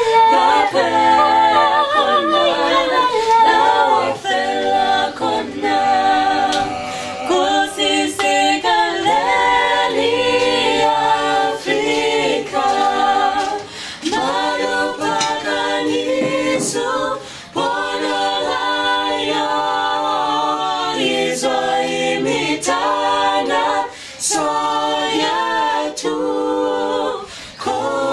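Small mixed choir of men and women singing a cappella in several-part harmony: held chords with short breaks between phrases.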